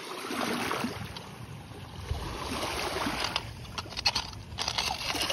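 Shallow lake water sloshing and lapping over a pebbly bottom as a pole is moved through it, with several sharp clicks in the second half.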